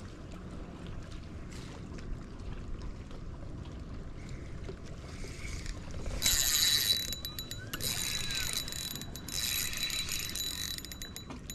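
Spinning reel's gears whirring as the handle is cranked in three bursts in the second half, with the line pulling against a lure snagged on a submerged tree.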